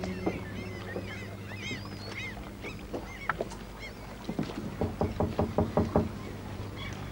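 Small birds chirping in short arched calls, then a quick run of about eight sharp knocks on a door.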